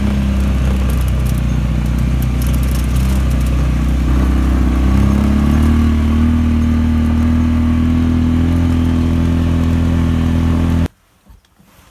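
Vehicle engine running with road noise, heard from inside the cabin while driving on a dirt track. The engine pitch rises about five seconds in as it speeds up. The sound cuts off suddenly near the end.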